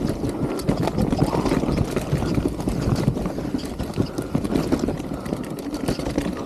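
Mountain bike running fast down a rough dirt singletrack: a steady rumble from the tyres on the ground, broken by quick, irregular knocks and rattles from the bike over roots and bumps.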